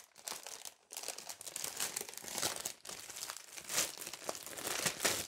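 Plastic packaging crinkling as it is handled and unwrapped: an irregular run of crackles with brief pauses.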